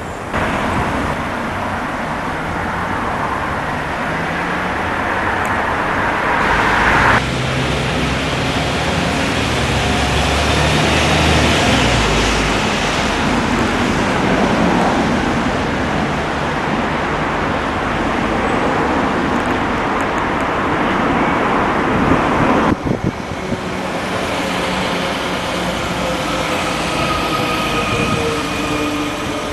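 Road traffic with buses and cars running past, in three cut-together recordings, with a thin steady whine over the last few seconds.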